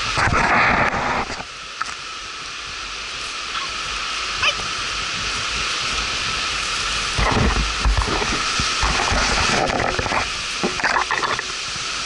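Walking along a forest trail: footsteps and rustling of brush and leaves over a steady high hiss. Louder bursts of noise on the microphone come right at the start and again from about seven to eleven seconds in.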